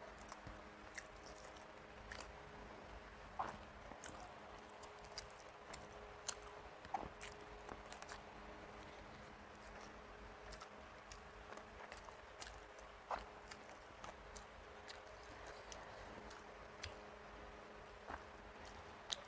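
Quiet close-up eating sounds: chewing with scattered soft mouth clicks and smacks as rice is eaten by hand, with a few louder clicks about three and a half, seven and thirteen seconds in. A faint steady hum sits underneath.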